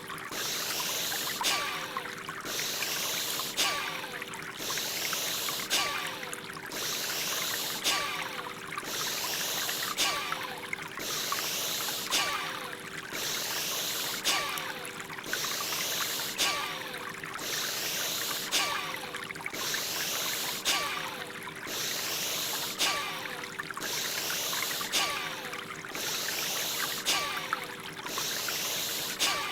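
Rhythmic forceful breathing sound effect of Bhastrika (bellows breath), about one breath a second at a steady pace, over a background of flowing water and a steady low drone.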